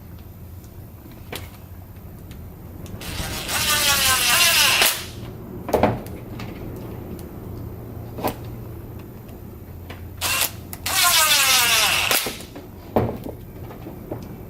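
Cordless impact driver with a T15 bit, run twice in bursts of one to two seconds, its whine dropping in pitch during each run as it drives screws. Sharp clicks from handling the tool's parts come between the runs.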